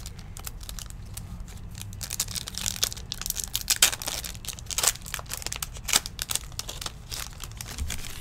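Foil wrapper of a Topps Stadium Club baseball card pack being torn open and crinkled by hand: a run of sharp crackles that grows louder and busier about two seconds in.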